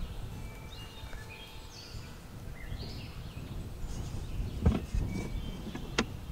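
Birds singing over a low background noise, then two sharp knocks near the end as a wooden drop-down cupboard flap in a camper conversion is opened.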